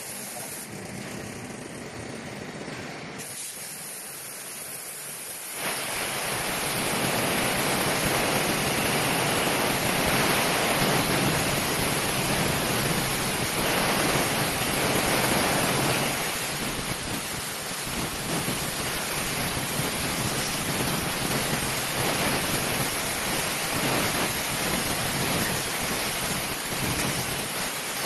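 Compressed-air jets of an onion peeling machine hissing steadily as they blow the dry skins off the onions. The hiss grows louder about six seconds in.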